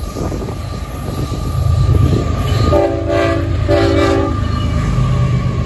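Freight locomotive horn sounding two short blasts about three seconds in, over the low running noise of the approaching train, which grows louder partway through.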